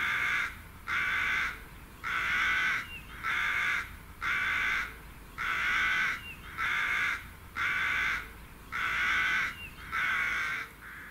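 Crow cawing: a steady series of about ten caws, roughly one a second.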